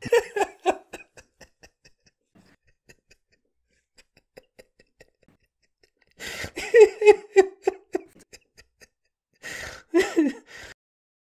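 A man laughing in bursts: a run of laughs at the start, faint giggles after it, then louder laughing about six seconds in and again near ten seconds. The commentator takes it for fake laughter.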